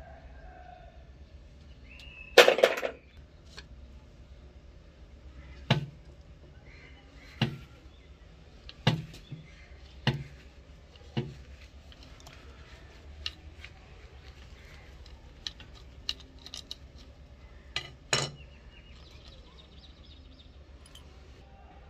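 Hand tools and small steel parts of an antique rifle clicking and knocking: a loud metal clatter about two seconds in, then single sharp clicks every second or two as a flat screwdriver works the rusty sling-swivel screw.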